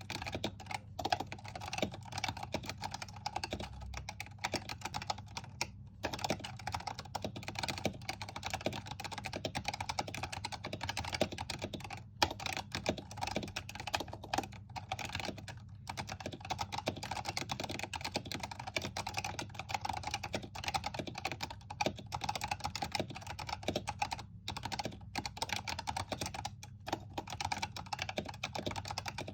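Razer Huntsman Tournament Edition keyboard with its stock linear optical switches and HyperX pudding keycaps, typed on quickly and continuously, with a few brief pauses.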